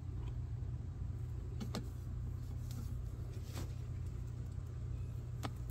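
Steady low machine rumble, with three faint clicks about two seconds apart as scissors work at a bell pepper's stem.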